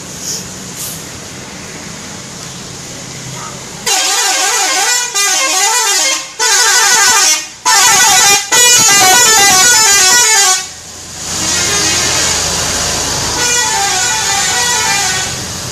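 Indonesian 'telolet' multi-tone musical bus horn playing quick, stepping melodic runs in several loud blasts with short breaks, starting about four seconds in. After a brief pause a quieter run of horn notes follows.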